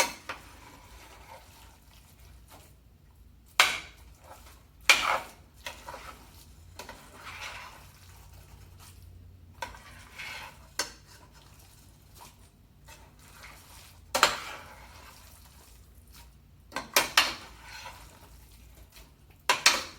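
A cooking utensil scraping and knocking against a frying pan as fried rice is stirred: sharp, irregular clanks every second or few, with quieter scraping between them.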